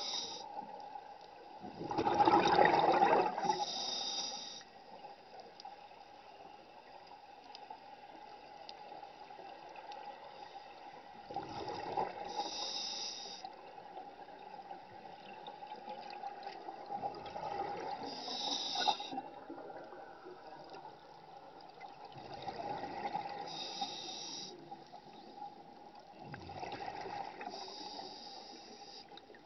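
Scuba diver breathing underwater through a regulator. Exhaled bubbles gurgle out in bursts about every five seconds, and each is followed by a short hiss of the next breath. The first burst is the loudest, and a steady faint whine runs underneath.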